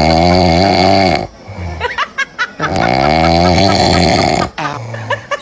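A dog snoring: two long, loud snores of about two seconds each, with shorter, softer breathing sounds between them.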